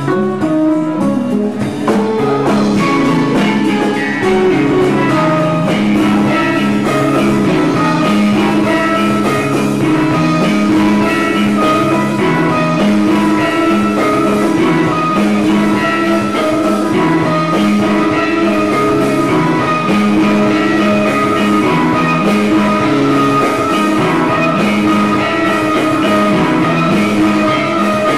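A live rock band playing: two electric guitars picking repeating melodic lines over a drum kit.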